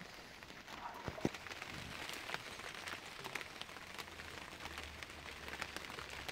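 Small wood fire crackling under a pot of milk: a quiet, steady patter of little pops, with a couple of sharper snaps about a second in.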